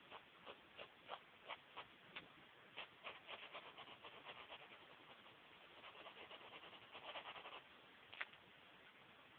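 Faint pencil strokes on paper. First come separate short scratches about three a second, then quicker shading strokes, then a longer run of rapid scribbling about six to seven and a half seconds in, and one sharper tick near the end.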